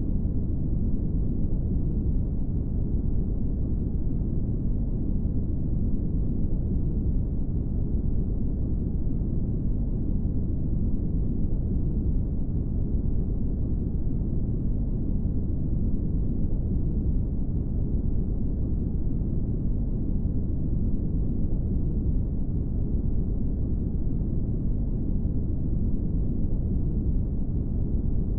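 Steady brown noise: an even, deep rushing hiss weighted to the low end, with no changes.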